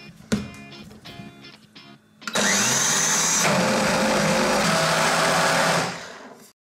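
A sharp knock just after the start, then a high-speed countertop blender switches on about two seconds in. Its motor spins up with a rising whine and runs steadily, blending a thick mix of roasted nuts, dates and water, then dies away near the end.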